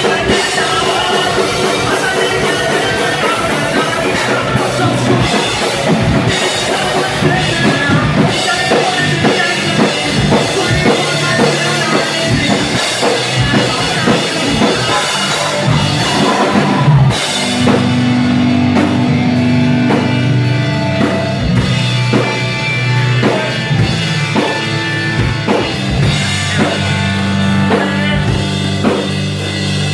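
Live rock band playing loud through the club PA: electric guitars, bass and a hard-hit drum kit. About seventeen seconds in, the top end thins out and long held low notes take over.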